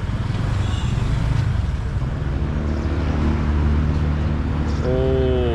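Motorbike engine running steadily with road noise, its hum settling to an even pitch about halfway through; a person's voice is heard briefly near the end.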